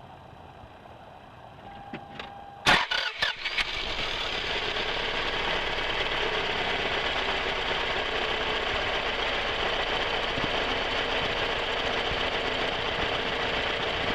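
1997 Toyota RAV4's four-cylinder engine cranking briefly and catching a little under three seconds in, then idling steadily. The idle is rough, which the owner puts down to a bad engine.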